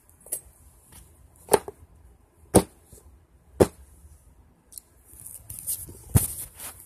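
Handling noise from a phone camera being moved about: sharp knocks and clicks roughly once a second, with rubbing and rustling near the end.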